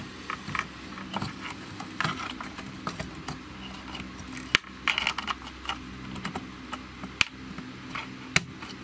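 Irregular small plastic clicks and taps from ribbon cables and their connectors being handled and pushed into place on a PAT tester's circuit board, with a few sharper clicks.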